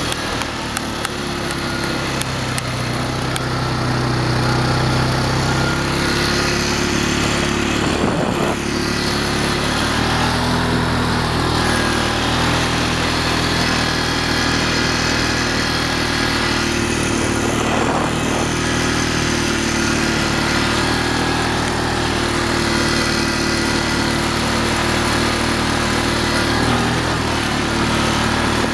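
ATV's single-cylinder four-stroke engine running steadily while riding along a sandy trail, with a constant rush of wind and tyre noise.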